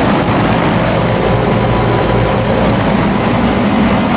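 Older Grand Aire package air-conditioner running steadily: an even rush of air with a low hum underneath. Its compressor sounds like a reciprocating one, which the owner takes for a Copeland.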